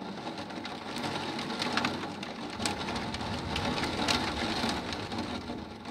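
Heavy thunderstorm rain pouring down: a steady hiss of rain with sharp spattering drop hits scattered through it.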